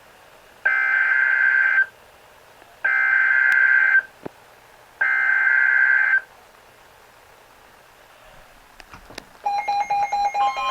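Emergency Alert System SAME header: three identical screeching bursts of digital data tones, each about a second long and a second apart, which open the alert. Near the end a steady two-pitch EAS attention tone begins.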